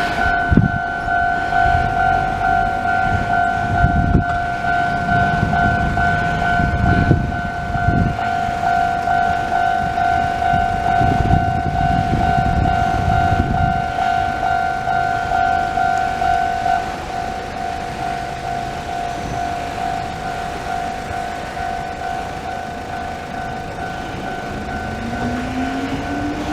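Japanese level-crossing warning bell of the older standard electronic type, ringing steadily as the crossing is activated for an approaching train. A few low rumbles come and go, and near the end a rising whine grows in.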